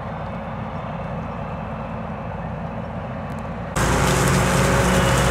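Heavy harvest machinery engine running steadily with a low drone. About four seconds in, the sound cuts abruptly to a louder, brighter machine noise with steady humming tones.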